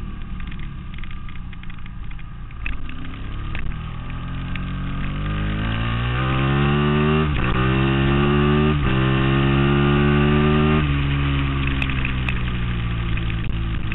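Onboard sound of a Ducati Monster S4Rs's L-twin engine racing: it runs at low revs off the throttle at first, then from about five seconds in revs up hard under acceleration, with two quick upshifts, and shuts off about eleven seconds in, revs falling.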